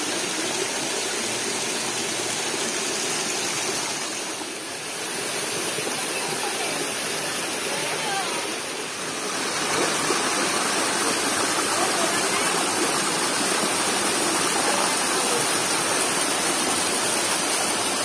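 Shallow rocky stream rushing and splashing over stones, a steady rush of water. About halfway through it grows louder and brighter as water spills over a small cascade between boulders.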